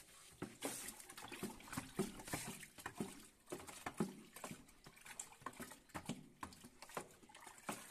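A wooden stick churning water and detergent powder in a plastic bucket: faint, irregular sloshing and splashing, several strokes a second.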